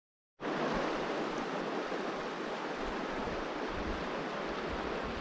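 Steady rushing outdoor noise with an uneven low rumble at times. It starts abruptly about half a second in.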